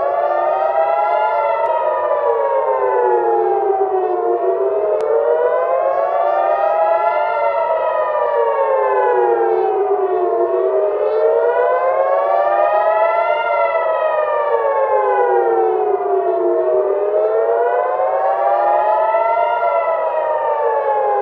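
Civil-defence air-raid siren wailing, its pitch rising and falling about every six seconds, with a second wail overlapping out of step; it cuts off suddenly at the end. An alert warning of incoming rocket fire.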